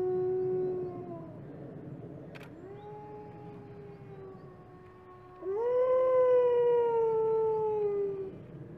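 Wolves howling. A white wolf's long, steady howl ends about a second in and is followed by a fainter howl. Then comes a louder howl that rises at its start and slowly falls, ending near the end.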